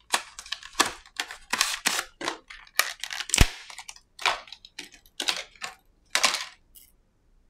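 A replacement iPhone display being unpacked: cardboard box and clear plastic packaging rustling and crinkling in irregular bursts, with one sharp snap a little over three seconds in.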